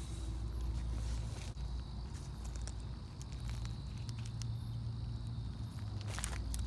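Rustling and light footsteps of someone moving through a vegetable garden bed, over a steady low rumble, with a burst of louder rustling of leaves near the end.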